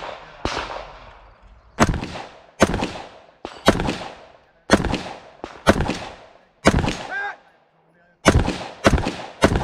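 AR-style semi-automatic rifle fired about eleven times at an uneven pace of roughly one shot a second, with a short pause about three-quarters of the way through. A ringing metallic note follows two of the later shots.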